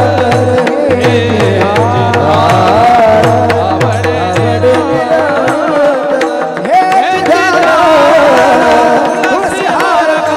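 A male kirtan singer sings a devotional Marathi melody with ornamented, gliding lines over a steady drone, accompanied by mridang. The drum's deep, regular bass strokes stop about halfway through.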